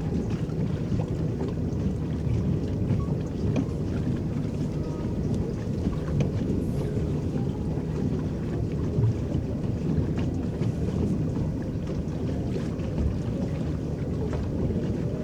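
Electric paddle boat moving across the water: a steady low rumble of water churning against the hull, with faint small splashes and ticks.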